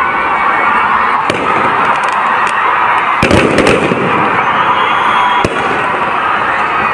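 Fireworks packed in a burning Ravana effigy going off: a steady dense din broken by sharp bangs, with a quick cluster of the loudest a little past the middle.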